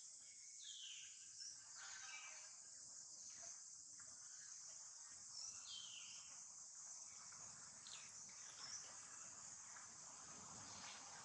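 Faint, steady high-pitched insect chorus, with two short falling whistled calls, about a second in and again near six seconds.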